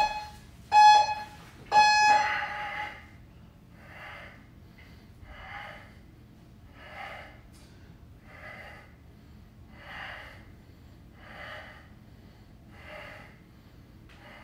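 Gym interval timer beeping a countdown: two short beeps and a longer final beep about two seconds in, signalling the start of a work interval. Then a man breathes hard with effort, one forceful breath about every one and a half seconds.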